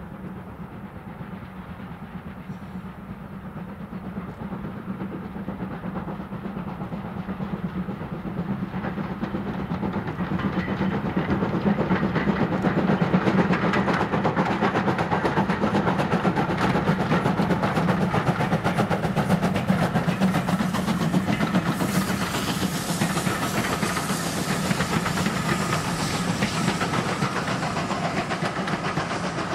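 Steam locomotive working a passenger train past, its exhaust and running noise growing louder as it approaches. Over the last third the coaches' wheels clack steadily over the rail joints as they roll by.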